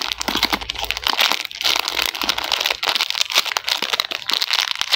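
Clear plastic packaging bag of a mini squishy toy crinkling continuously as it is handled in both hands, a dense crackle of small clicks.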